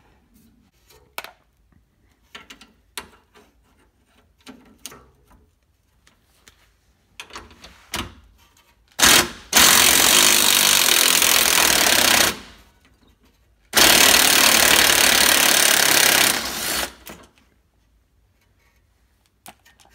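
Cordless impact driver hammering on an 18 mm nut at the base of a rear shock absorber until the nut comes off. Two loud runs of rapid hammering of about three seconds each, the first starting about nine seconds in, after scattered clicks and knocks of tools being handled.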